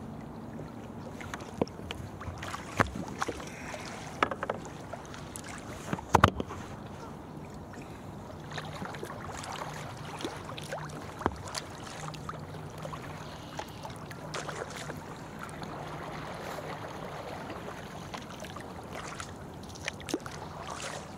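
Kayak paddles stroking through the water, with steady lapping and dripping and a few sharp knocks, the loudest about six seconds in.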